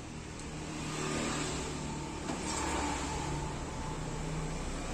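A motor vehicle engine running, with a steady low hum that grows louder about a second in and then holds.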